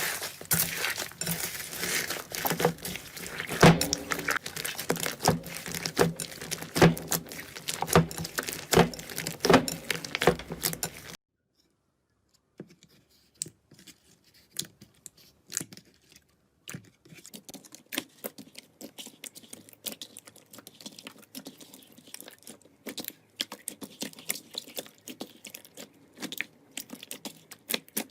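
Slime being squeezed, poked and stretched by hand, giving a quick irregular run of sticky clicks, pops and crackles. About eleven seconds in it stops for a moment, then carries on more quietly and sparsely.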